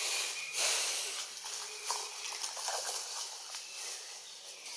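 Outdoor background noise with scattered rustles and clicks and a brief louder burst of hiss about half a second in. A faint steady high tone runs underneath.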